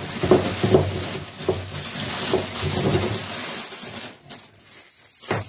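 Steel hanging chain for a punching bag clinking and jangling as it is handled, with a run of sharp clinks in the first three seconds, then quieter near the end.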